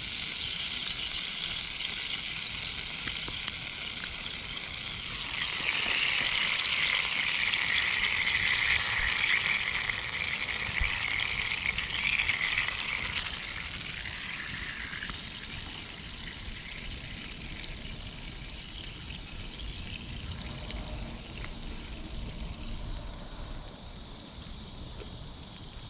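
Formed meat sizzling over a campfire, a steady hiss that grows louder about five seconds in and dies back down after about thirteen seconds.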